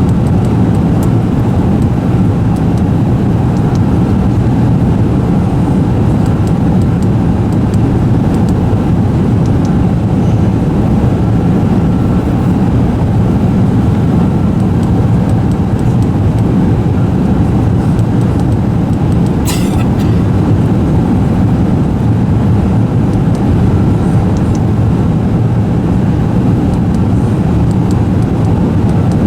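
Steady roar of cabin noise inside an Airbus A380 airliner, from its engines and the airflow, holding one level, with a faint steady whine and a single short click about two-thirds of the way through.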